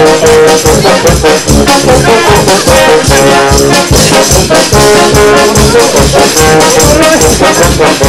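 Brass music, trumpet and trombone playing held notes over a steady beat.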